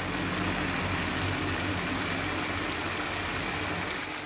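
A steady low hum with an even hiss over it, the running background noise around a cooking pot on the stove, with a light knock right at the start.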